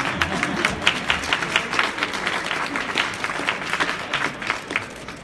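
Audience applauding: many hands clapping in a dense patter, fading away at the end.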